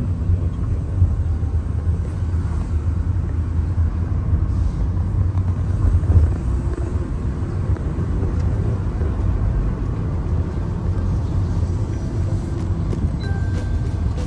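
Steady low rumble of a moving vehicle in travel.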